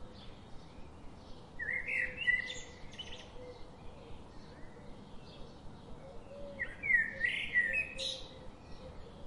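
Birds singing: two louder song phrases about five seconds apart, each a quick run of sweeping, rising notes, over scattered faint chirps and a steady background hiss.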